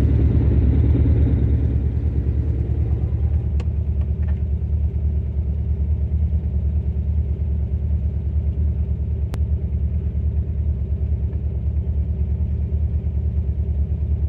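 1971 Lamborghini Espada Series 2's V12 engine idling, a steady, evenly pulsing low rumble heard from inside the cabin.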